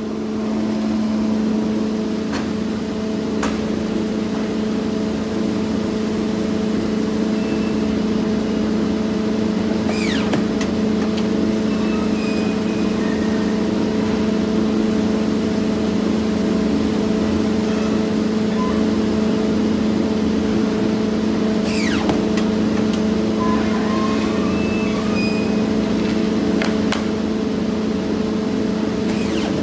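1997 Polar 115 guillotine paper cutter system running with a steady machine hum. A few sharp clicks and knocks sound over it, two of them near the middle and near the end.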